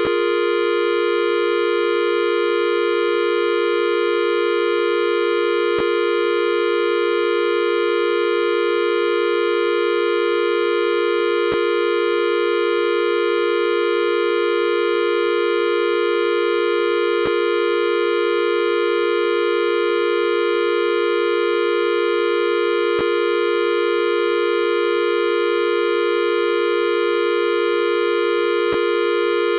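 A steady, unchanging electronic tone, buzzy with many overtones, with a faint click about every six seconds.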